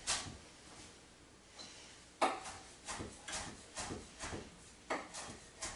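Chef's knife chopping a bunch of cilantro on a cutting board: a quiet pause, then a run of sharp knocks about two or three a second.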